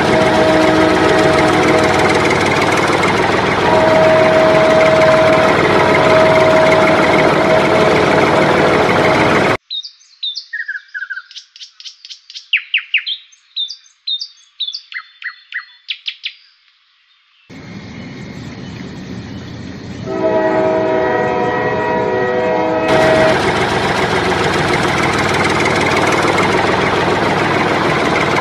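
Small electric motor of a toy tractor running with a steady whine under load. About ten seconds in it cuts off sharply to several seconds of bird chirps, then a held horn-like tone, before the motor noise returns.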